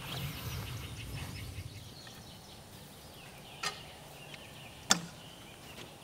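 Soft footsteps in grass, then two sharp knocks a little over a second apart, the second louder: a cant hook striking a pine log as it is set to roll the log. Faint bird chirps behind.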